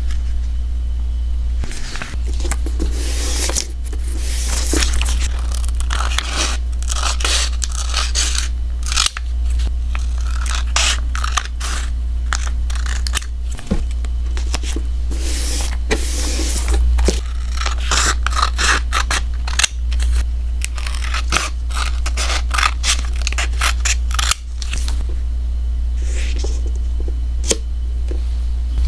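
Clear plastic film and sticker sheets handled by hand, peeled and pressed down: irregular crinkling, crackling and scraping of plastic with sharp little clicks, over a steady low hum.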